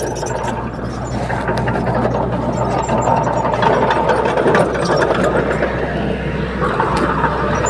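Heavy diesel earthmoving machine running steadily, its low engine hum mixed with a busy mechanical clatter. The sound turns brighter about seven seconds in.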